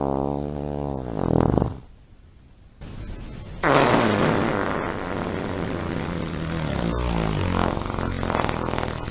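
Fart sound effects with a honking, pitched tone. One wavering fart ends a little under two seconds in. After a short lull, a second long fart starts sharply and carries on to the end.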